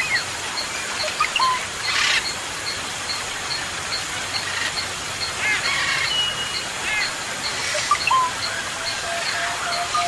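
Bird chorus in a jungle soundscape: scattered chirps and short whistles over a steady hiss, with a high pip repeating evenly a couple of times a second. A run of low, evenly spaced notes comes in near the end.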